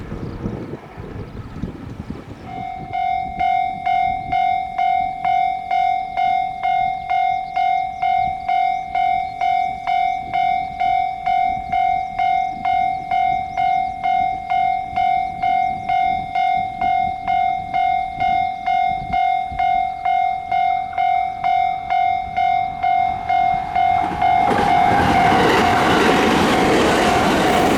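A Japanese railway level crossing's electronic warning bell starts about two seconds in and rings steadily about twice a second. Near the end a train's running noise swells loudly over the bell as the train reaches the crossing.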